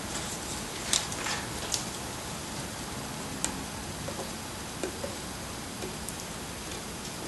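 Fingers picking at the edge of blue painter's tape on a board to lift it, making a few faint, separate clicks and light scratches over a steady background hiss.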